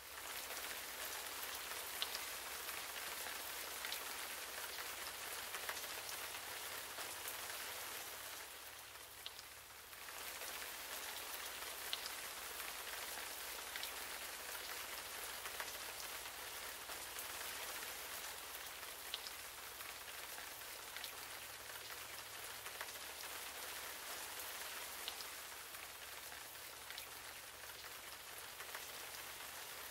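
Steady rain falling, an even hiss with scattered sharp ticks of drops striking close by; it dips briefly about nine seconds in.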